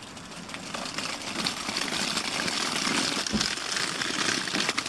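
Small plastic wheels of a toy doll stroller rolling over gravel, a steady gritty rattle of many small clicks that grows louder about a second in.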